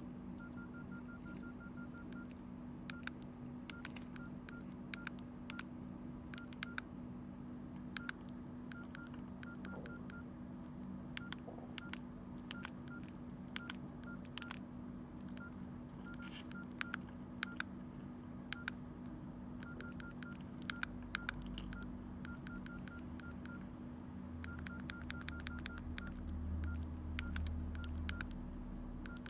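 Mobile phone keypad tones: runs of rapid short beeps, all at one pitch, about seven a second, as keys are pressed and held, mixed with sharp key clicks. A steady low hum lies underneath.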